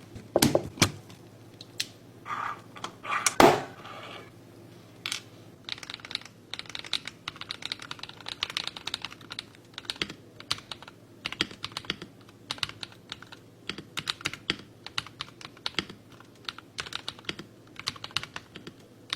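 Typing on an Akko PC72B Plus mechanical keyboard: a few separate, heavier key strikes in the first few seconds, then fast continuous typing.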